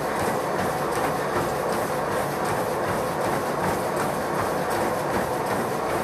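Treadmill in use: a runner's quick, even footfalls knocking on the moving belt, about three a second, over the steady whir of the motor and belt.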